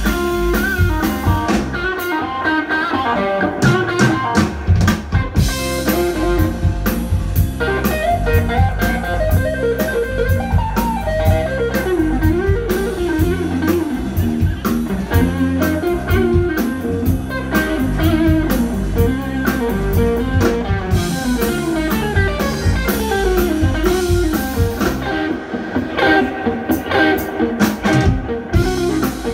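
Live instrumental blues: an electric guitar through a Colorsound Bluesman amp plays wandering melodic lines over electric bass and a drum kit.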